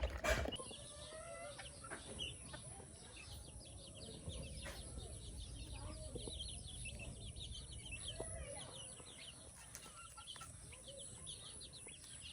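A flock of baby chicks peeping: many short, high cheeps overlapping without pause, with a few lower calls among them. A single sharp knock sounds right at the start.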